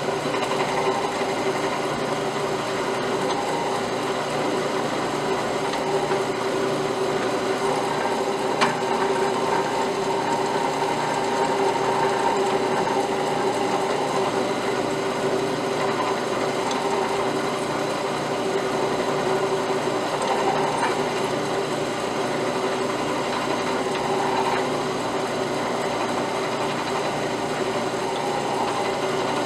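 Drill press running steadily as a number 6 drill bit cuts down through an oil pan drain plug held in a vise, with one brief click about eight and a half seconds in.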